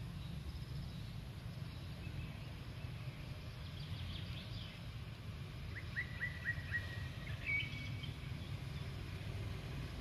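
Birds chirping over a steady low rumble of outdoor background noise, with a quick run of short, falling chirps about six seconds in and a few more high calls around four and seven seconds.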